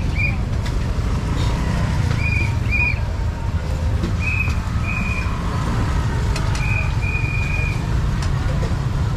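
Street traffic ambience with a steady low rumble, overlaid by short, high whistle-like peeps in twos, the last one held longer.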